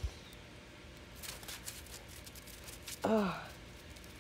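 One short, low vocal call about three seconds in, falling a little in pitch, after a soft thump at the start and faint crunching.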